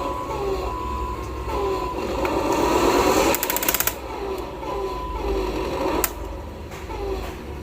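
Small electric motors and gears of radio-controlled model construction vehicles whining in short, repeated falling bursts, with a quick run of clicks about halfway through and a single sharp click near the end.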